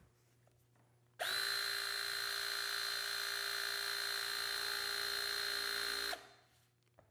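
Greenlee GRE-6 battery-powered hydraulic tool running its motor-driven pump: a steady, high whine that starts abruptly about a second in, holds for about five seconds and cuts off suddenly.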